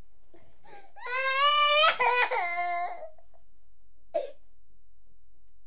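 A small child crying: a high, wavering wail lasting about two seconds, then a short sob about four seconds in.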